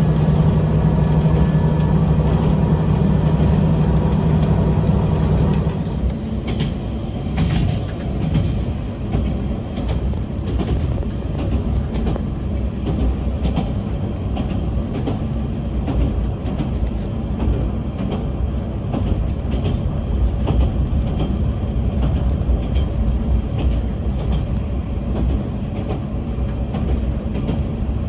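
Yamagata Railway diesel railcar running along the line: a steady engine drone for about the first six seconds, then the engine note falls away, leaving the low rumble of the wheels with scattered clicks over the rail joints.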